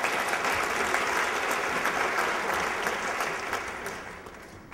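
Audience applauding in a large hall, a dense spell of clapping that dies away over the last second.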